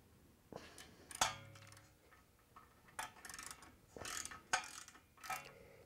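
Faint ratchet with a 14 mm socket clicking in short, irregular strokes as it snugs down a brake caliper mounting bracket bolt, with a sharper metallic clink about a second in.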